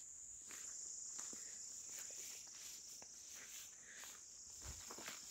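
A steady high-pitched insect drone, with faint scattered clicks and rustles over it.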